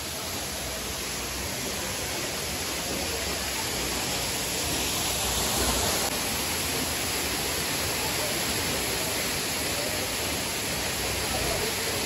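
Steady rush of a waterfall and its rocky stream, an even hiss of falling and running water.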